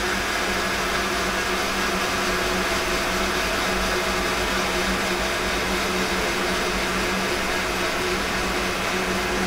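Steady machine drone in a motorcycle dyno cell: a loud, even whir with a constant low hum underneath, holding without change.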